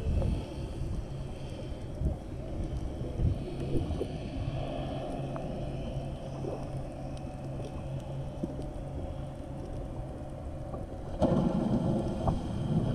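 Muffled sound picked up by a camera held under the water: a steady low rumble and hum with water noise, growing louder near the end.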